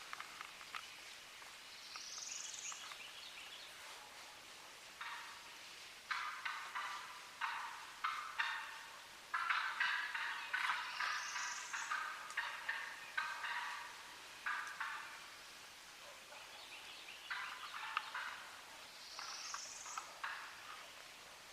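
Wild turkeys gobbling again and again in short rattling bursts, some overlapping, loudest in the middle. A high rising bird call sounds three times.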